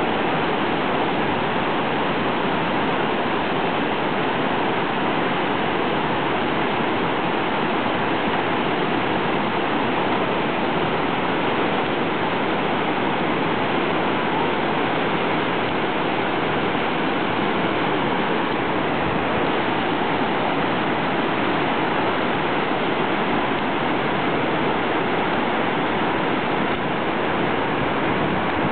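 Creek whitewater rapids rushing over boulders: a steady, unbroken rush of water.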